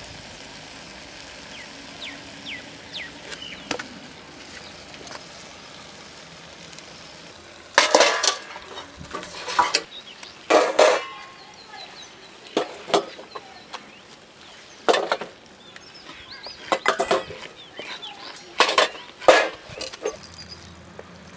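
Wooden spoon stirring and scraping thick rabbit roast in an earthenware clay pot. Quiet at first, then from about eight seconds in a run of loud, irregular scrapes of wood against clay.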